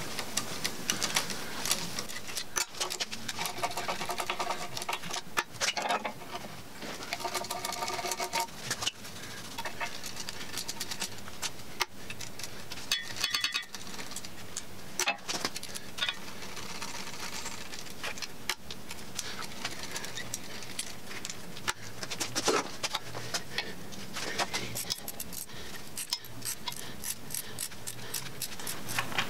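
Socket ratchet clicking in quick runs as it backs out the bolts of an LS 5.3 L V8's front timing cover, with a few short squeaks.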